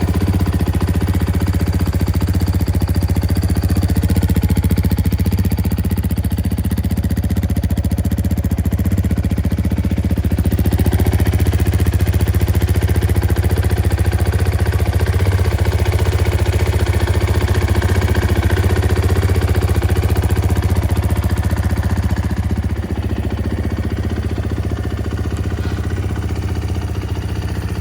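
KTM 450 XCF-W dirt bike's single-cylinder four-stroke engine idling steadily, a little quieter near the end.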